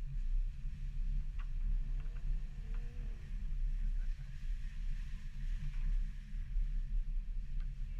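Subaru XV driving along a muddy dirt track: a steady, muffled low rumble of engine and tyres picked up by a camera mounted outside on the bonnet, with a few light ticks and a brief wavering tone about two to three seconds in.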